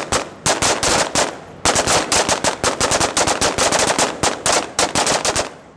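Rifle fire on a live-fire line: a rapid, irregular string of sharp gunshots, with a brief pause about a second in before the shooting resumes even more densely.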